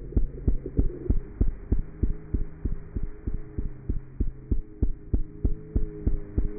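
A cat's heartbeat heard through a stethoscope: quick, even low thumps about three a second, over a steady hum.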